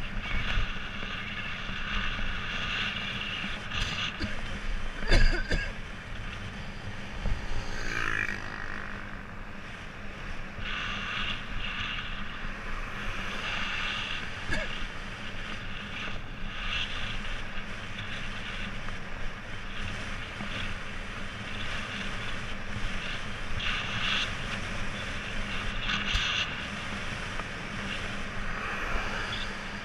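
Wind buffeting the microphone of a helmet camera on a bicycle riding along a paved highway, a steady rushing noise that rises and falls in gusts, with a few knocks, the loudest about five seconds in.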